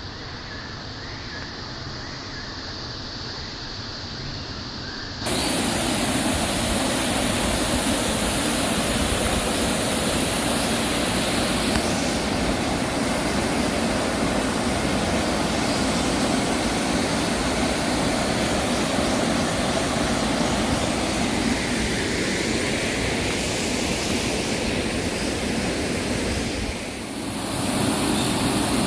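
Mountain stream water rushing steadily, quieter at first, then abruptly much louder and fuller about five seconds in, with a brief drop in level near the end.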